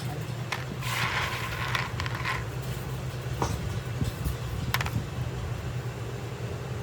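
Steady hum of a workshop machine's motor, with scattered sharp clicks and a brief scraping sound about a second in.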